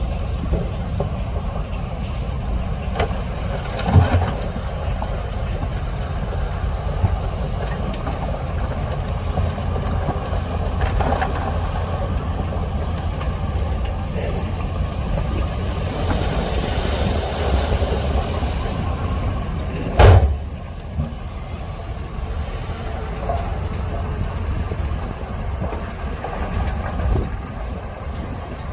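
Heavy diesel earthmoving machinery (dump trucks and a bulldozer) running steadily with a low rumble. A few short, loud sounds stand out: one about 4 seconds in, a stronger one near 20 seconds, and one at the very end.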